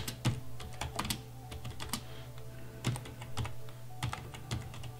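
Typing on a computer keyboard: irregular keystrokes, several a second, over a steady low hum.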